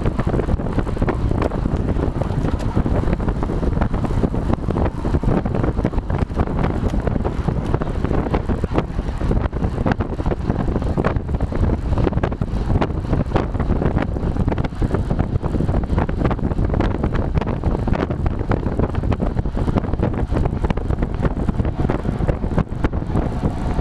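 Loud, steady wind buffeting a bike-mounted GoPro's microphone at around 30 mph.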